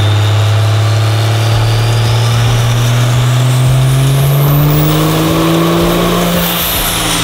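Compound-turbo Cummins diesel in a Mustang run flat out on a chassis dyno pull, its note climbing steadily in pitch and levelling off near the end, with a high whistle rising above it. This pull made 1,016 horsepower on a mild 24 degrees of timing.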